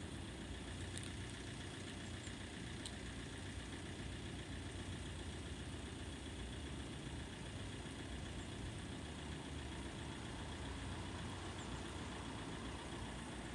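Steady low rumble of road traffic, with vehicles idling in the distance.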